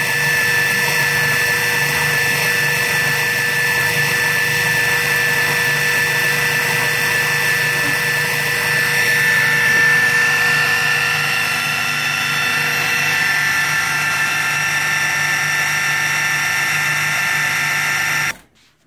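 Electric food processor motor running steadily with a whirring hum as its blade churns frozen strawberries and Greek yogurt, then cutting off suddenly near the end.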